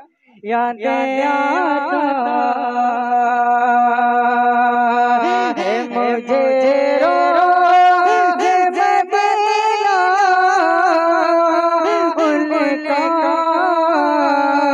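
A man singing a naat unaccompanied into a microphone, holding long notes decorated with wavering, ornamented turns. The voice comes in after a short pause at the start.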